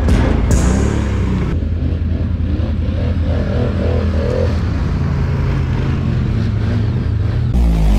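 Quad bike (ATV) engine running, its pitch rising and falling as it revs up and down about three to four and a half seconds in.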